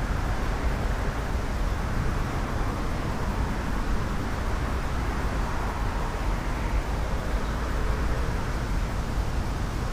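Wind buffeting the microphone outdoors: a steady rushing rumble with uneven low gusts.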